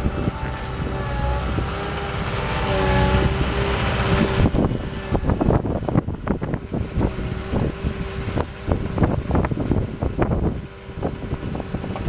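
Cat 226B skid steer's diesel engine running under load while it drives and works its loader arms, with a steady whine. Irregular knocks and rattles run through the second half.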